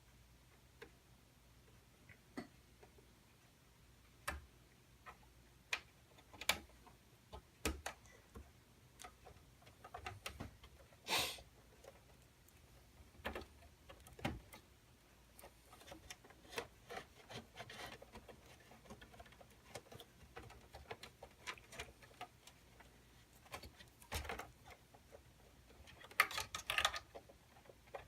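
Scattered light clicks, taps and rubbing of cables and plastic connectors being handled inside a desktop PC case as a SATA cable is fitted. The clicks come irregularly, busier in the second half, with a quick cluster near the end.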